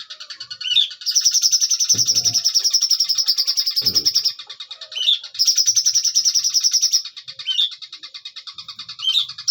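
Cucak cungkok songbird singing a long, rapid, high-pitched trilling song in sustained runs, with softer trilling between the loud runs. Two short low thumps come about two seconds apart early on.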